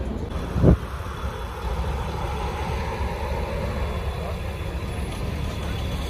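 Tour coach engine idling as a low steady rumble, with a single sharp thump a little under a second in.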